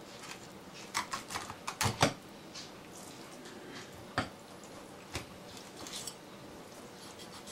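Kitchen knife filleting a sea bream on a wooden cutting board, the blade clicking and scraping along the fish's backbone: a quick run of clicks about a second in, then a few single clicks.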